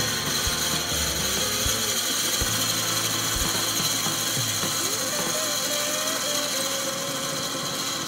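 Drill bit in a lathe's tailstock drill chuck boring into the end of a spinning oak blank: a steady, high hissing grind of the cut.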